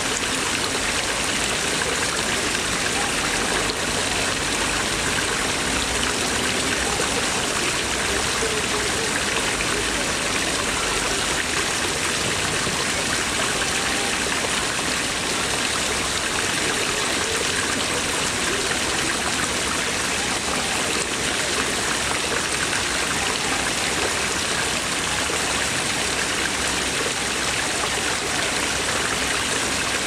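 Water jets pouring from stone dragon-head spouts and splashing steadily into a pond.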